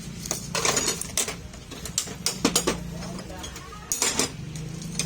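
Metal tools and parts clinking and knocking in several short bursts over a steady low hum, during work on a power steering rack and pinion.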